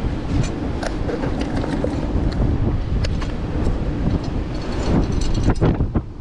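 Wind buffeting the microphone over the wash of surf, a steady low rumble, with scattered clicks and knocks that come thickest near the end.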